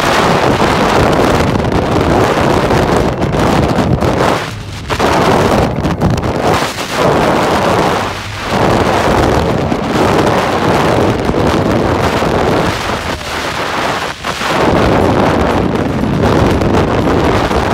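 Sustained wind of about 80 mph blowing across the microphone: loud, steady wind noise that eases briefly three times.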